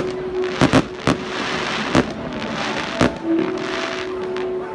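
Aerial fireworks shells bursting: a cluster of sharp bangs in the first second, then single bangs about two and three seconds in.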